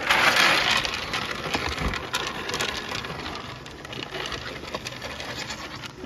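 Alfalfa pellets poured from a plastic tray into a wooden feed trough: a loud rattling rush that fades over about a second, then scattered clicking as sheep push their noses through the pellets.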